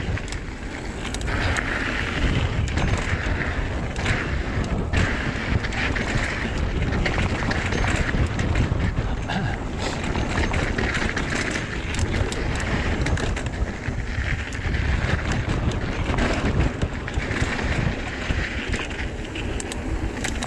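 Trek Fuel EX 7 mountain bike riding fast downhill on dirt singletrack: tyre noise and many small rattles and clicks from the bike over bumps, under heavy wind buffeting on the microphone.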